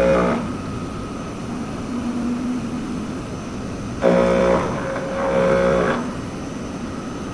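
CNC machining center running: a steady hum with a fixed-pitch tone that comes and goes in stretches of a second or two, dropping to a quieter whir between them.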